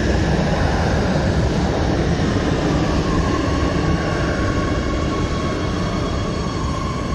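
Oslo Metro MX3000 train rumbling into an underground station and slowing to a stop at the platform; a steady whine comes in about three seconds in as it decelerates, and the rumble eases off toward the end.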